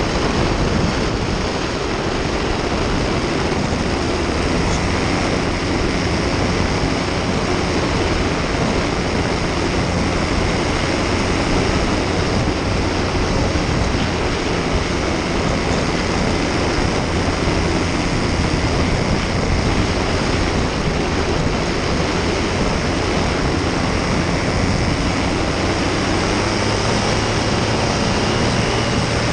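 Paramotor's backpack engine and caged propeller running at a steady throttle in flight, a constant drone mixed with wind rushing over the microphone.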